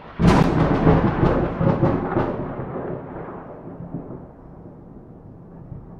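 Thunderclap: a sharp crack about a quarter second in, a few more crackles over the next two seconds, then a long rumble slowly fading away.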